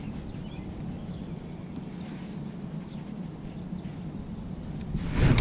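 Wind buffeting the microphone, a steady low rumble. Near the end a sudden, much louder rush of noise.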